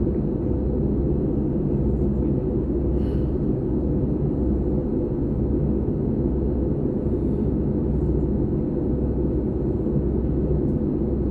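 Steady low rumble inside the passenger cabin of a Frecciarossa high-speed train running along the track, even throughout with no distinct knocks or announcements.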